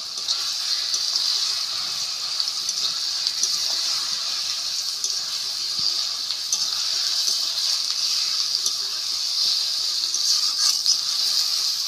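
Jujube pickle in oil and sugar syrup sizzling steadily in an iron kadai, with faint scrapes and taps of a metal spatula stirring it against the pan.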